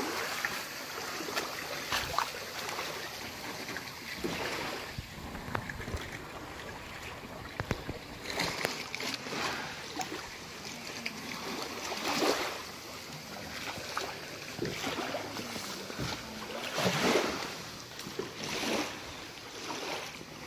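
Small waves lapping and washing at the water's edge, a steady wash with louder swells every few seconds.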